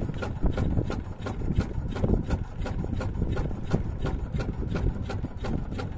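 A small boat's engine running low and steady, with irregular knocks and slaps over it, about three a second.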